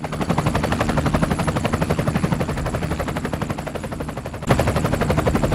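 Helicopter rotor blades chopping in a rapid, even beat as the helicopter flies in; it gets suddenly louder about four and a half seconds in.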